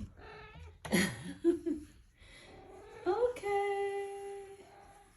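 A voice: a short falling vocal sound about a second in, then a pitch that rises and is held steady like a hum for over a second.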